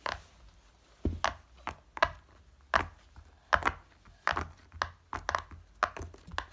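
Fidget toys being picked up and set down on a hard surface: a run of irregular knocks and clacks, some close together.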